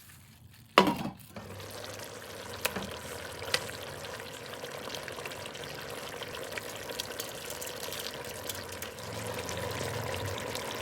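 Pan of spicy pork adobo in Coca-Cola cooking on the stove, with a steady hiss of the sauce simmering. A single loud sharp knock with a short falling ring comes about a second in.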